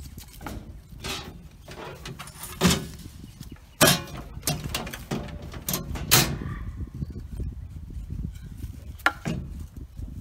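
Knocks and clanks of galvanized steel hog feeders and wooden boards being shifted and set down, a string of irregular hits with a few sharp bangs among them.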